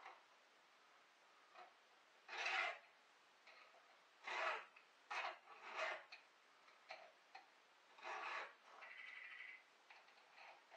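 A hand file rasping across the cutters of a chainsaw chain as it is sharpened: about five separate strokes at uneven intervals, with faint clicks between them.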